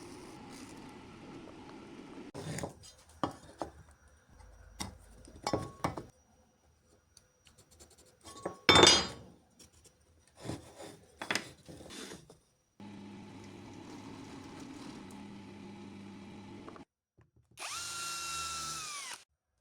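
Workshop tool work: knocks and clatter of parts being handled, a steady machine hum for a few seconds, then near the end a power drill's motor spinning up, running briefly and winding down.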